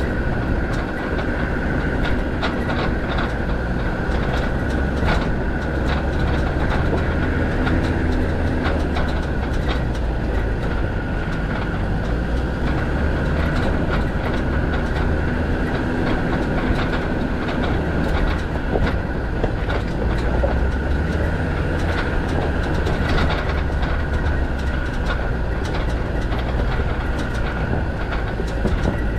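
Land Rover Defender 90's Td5 five-cylinder turbodiesel running at low speed over a rough, stony track: a steady engine drone with a constant whine above it and a stream of rattles and knocks from the body and the stones under the tyres.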